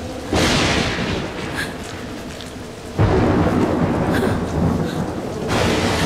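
Thunder over rain: a sudden crash just after the start and a louder, deeper crash about halfway through, each rumbling on, with another swell near the end.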